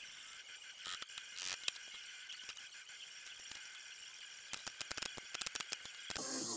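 A few knocks of wood being handled about a second in, then a quick run of sharp clicks from a pneumatic brad nailer fastening a glued joint in a barnwood table base. Music starts just before the end.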